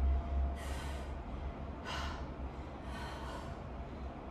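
A woman breathing hard through her nose and mouth while exercising, several hissy breaths a second or so apart.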